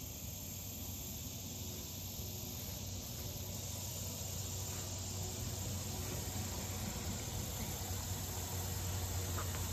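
Steady outdoor hum of insects, with the sound of a car passing on a road bridge slowly growing louder toward the end.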